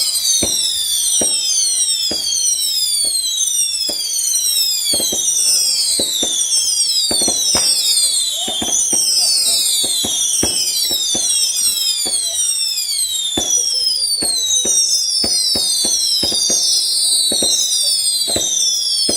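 A barrage of whistling fireworks: many overlapping high whistles, each falling in pitch, several a second without a break, over a steady run of sharp cracks and pops.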